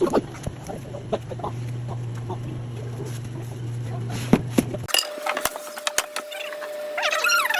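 A steady low hum with scattered light clicks cuts off about five seconds in. A faint steady tone follows, and near the end a run of rising and falling calls like poultry clucking.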